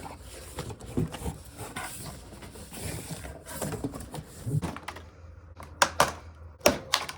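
Cardboard box and packing being handled and opened to get a radiator out: irregular rustling and scraping, with a few sharp knocks near the end.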